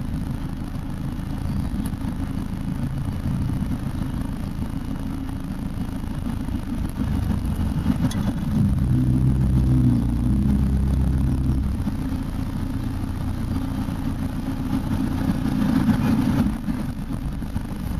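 4x4's engine running, heard from inside the cab as the vehicle drives down a muddy drop-off. The engine note rises and gets louder for about three seconds near the middle, then settles back.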